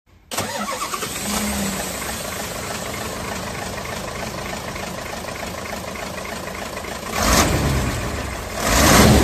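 A truck's diesel engine running steadily, with two louder swells near the end.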